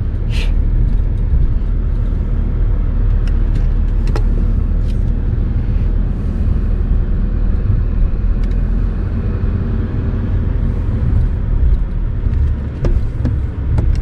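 Car driving slowly, heard from inside the cabin: a steady low engine and road rumble, with a few short clicks and knocks.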